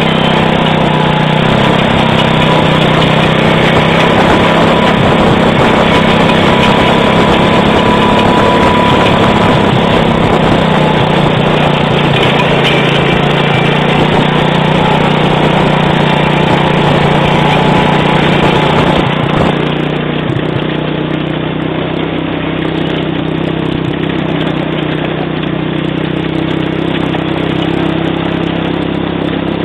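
A small 110cc ATV (quad bike) engine running steadily. About two-thirds of the way through it eases off and runs on more quietly.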